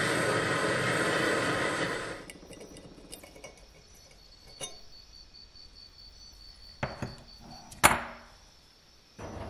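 Handheld gas torch flame hissing for about the first two seconds as it heats rusty metal, then cutting off. After that come a few light metallic clicks and clinks from pliers and small metal parts being handled, the sharpest near the end.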